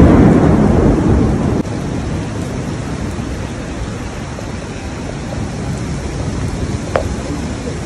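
Rain falling steadily, with a loud low rumble of thunder over the first second and a half that cuts off suddenly.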